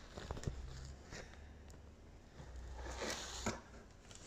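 Quiet handling noise from a moulded carbon-fibre panel being held and moved: a few light taps and clicks, then a brushing scrape that ends in a tap about three and a half seconds in.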